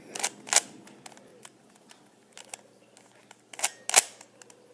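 Plastic speed cube being turned, its layers making a series of sharp clicks and clacks: two loud ones near the start, faint ticks in between, and a burst of loud clacks about three and a half to four seconds in. These are the turns that make the checkerboard pattern.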